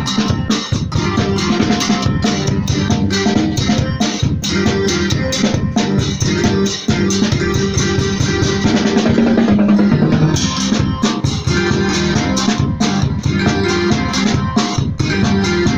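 Church groove played on a Medeli electronic keyboard with drums: a busy drum rhythm over keyboard chords and a bass line. The drum hits thin out for a couple of seconds in the middle while a low chord is held, then pick up again.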